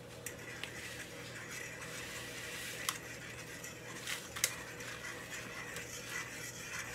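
Dry instant mashed potato flakes pouring from a pouch into a pot of hot water, a faint steady rustle with a few light clicks a few seconds in, over a low steady hum.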